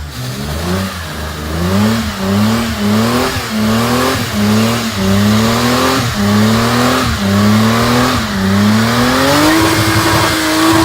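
Lexus IS engine revving hard during a burnout. The pitch climbs and drops back about once a second, then holds high near the end, over a steady hiss.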